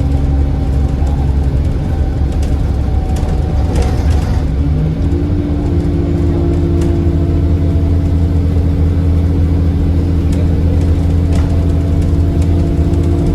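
City bus's diesel engine pulling hard under acceleration, with its turbocharger whistling. About four to five seconds in the engine note shifts, as at a gear change, then holds steady at a higher pitch.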